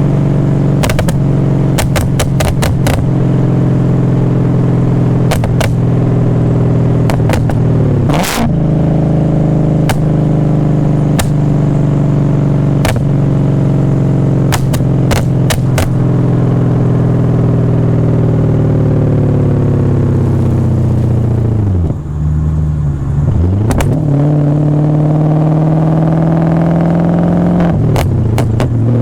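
BMW E39 540i's V8 running through a straight-piped exhaust into a Summit Racing muffler while driving: a steady, loud drone with scattered sharp clicks. About three quarters of the way through, the pitch drops sharply and then climbs back as the revs fall and build again.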